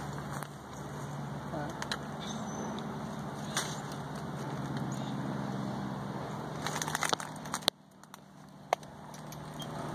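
A steady low mechanical hum, like an idling engine, with a few faint crackles and clicks; the hum cuts off suddenly near the end, leaving a quieter background and a single sharp click.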